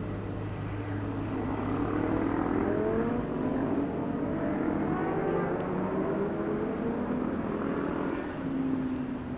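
Motorcycle engines accelerating, their pitch rising again and again as they pull through the gears, several overlapping.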